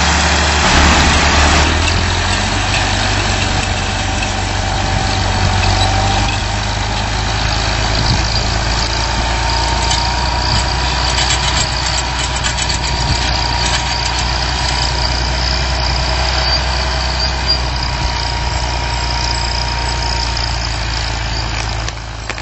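Steyr 8100 tractor's diesel engine running steadily under load while pulling a mounted plough through the soil, with a thin steady whine from about six seconds in.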